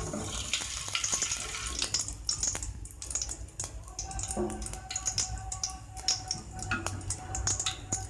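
Fenugreek seeds frying in hot oil in an aluminium pot: a sizzle with many small, quick crackles and pops throughout. A faint steady tone sits under it for a few seconds in the middle.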